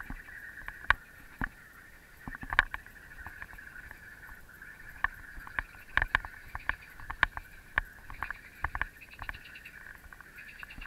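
A bicycle rolling over a paved path: irregular sharp clicks and knocks as the bike and the action camera on it rattle over bumps, over a steady high-pitched hum.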